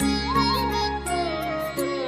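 Background music: an ornamented melody line that glides and bends in pitch over a steady low drone, with light percussion.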